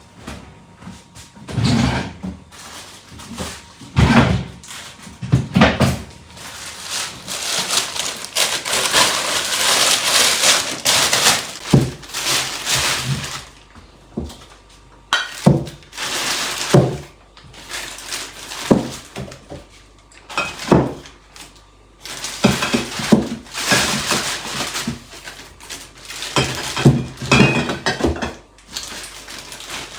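A run of knocks and thunks from objects being handled and set down, with stretches of scraping or rustling in between.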